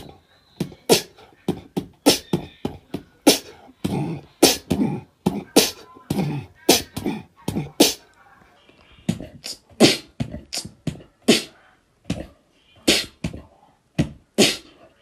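Beatboxing: a quick, fairly regular run of sharp mouth-made kick and snare hits with short vocal sounds between them.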